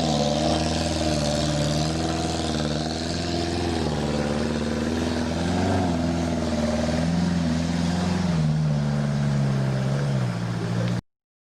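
Off-road 4x4's engine running under load, its revs rising and falling unevenly as it works along the trail; the sound cuts off suddenly near the end.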